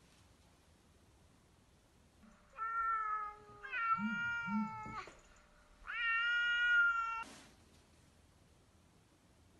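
A cat meowing three times, each meow drawn out for about a second.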